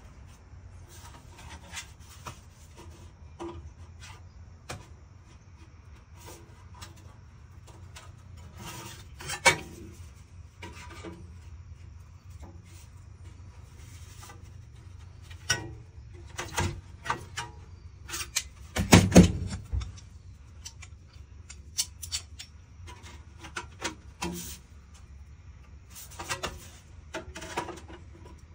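Sheet metal handled and bent by hand: scattered knocks, clanks and rubbing of the thin metal, with a louder run of knocks about two-thirds of the way through.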